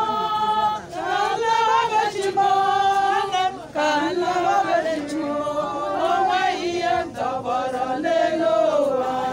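Church choir of men and women singing together a cappella, voices holding notes in phrases with short breaks between them.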